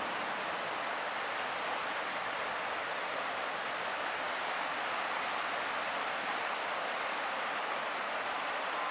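Steady hiss of splashing, rushing water from a small fountain-type geyser spouting at the river's edge.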